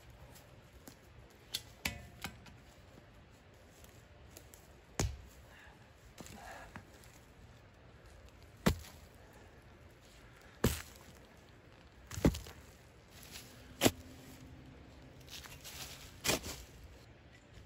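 Shovel blade chopping into stony soil while digging a planting hole: a series of about eight sharp hits, a couple of seconds apart, with some scraping of dirt between them.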